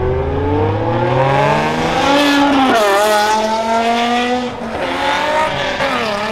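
A car engine accelerating hard, its revs climbing steadily, dropping sharply at a gear change about two and a half seconds in, then climbing again.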